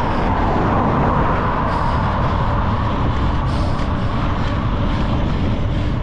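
Wind buffeting the microphone with road noise while riding fast along a paved road: a loud, steady rush with no clear engine note.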